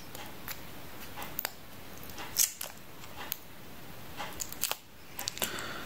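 A hard plastic parts sprue handled in the fingers: irregular light clicks and rattles of plastic, about a dozen scattered through.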